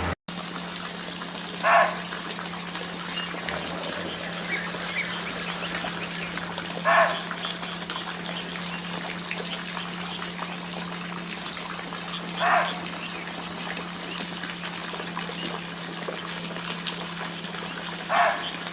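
Barking deer giving single short, sharp barks, four times at an even pace of about one every five and a half seconds, over a steady low hum.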